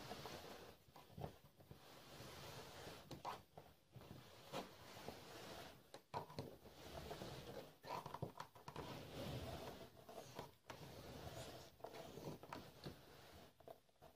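Faint rustling of a woven carpet and fabric being handled, with scattered small clicks and knocks from the wooden toggles and sticks.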